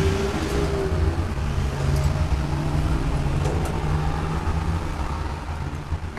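A motor engine running steadily with a low drone, with a few faint clicks over it.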